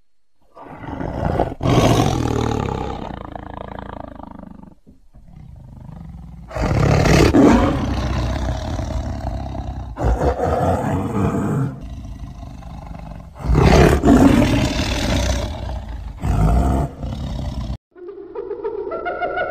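Tiger roaring in three long bouts of about four seconds each, with quieter moans between. Near the end a spotted hyena starts calling with wavering, rising cries.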